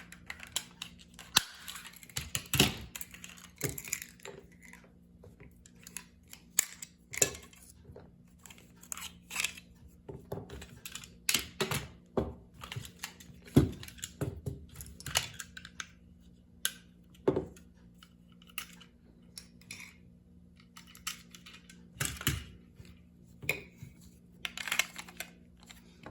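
Irregular clicks and knocks of a Walther P99 spring airsoft pistol's plastic parts being handled and worked apart by hand.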